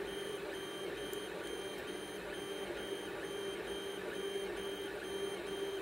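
Desktop 3D printer printing: its stepper motors give a steady hum, with short high tones repeating evenly several times a second as the print head moves.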